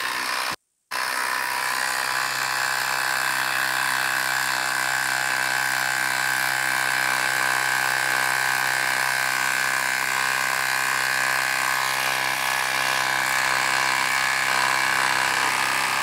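Ridgid Octane cordless impact driver hammering steadily as it drives a long lag screw into the end grain of a log. It stops briefly just under a second in, then starts again and runs without a break.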